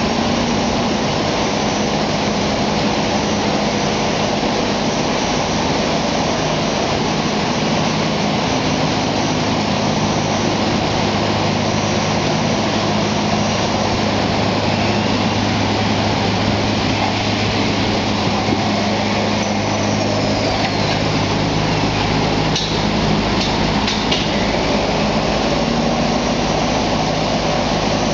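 Wide sheeter and cutter machine running, its electric motor and rollers giving a steady hum and whir as the roll of sheet material feeds out. A few light clicks come near the end.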